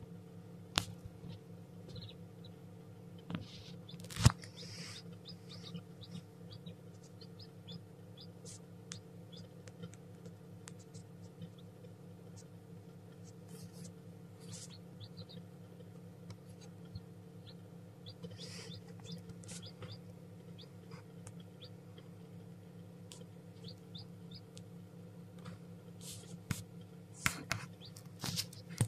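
Newly hatched chick moving about in wood shavings among unhatched eggs, with short faint peeps and scratchy rustling over a steady low hum. A few sharp knocks stand out, the loudest about four seconds in and several more near the end.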